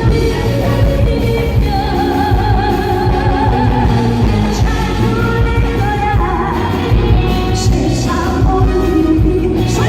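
A female pop singer singing a song over a backing track with a steady bass beat, holding notes with a wavering vibrato.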